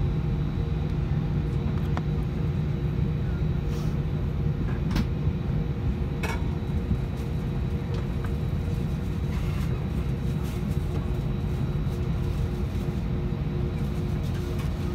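Steady hum inside the cabin of an Airbus A320 standing at the gate: the aircraft's air-conditioning and systems running with a few constant low tones, and a few faint clicks in the cabin in the middle of it.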